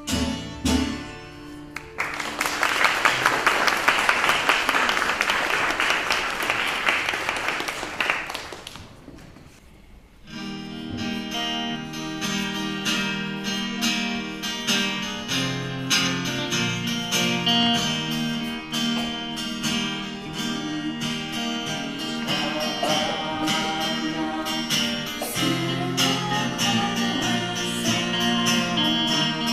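A song ends and audience applause follows for several seconds, dying away. About ten seconds in, an acoustic guitar starts strumming a new song, with a voice singing over it near the end.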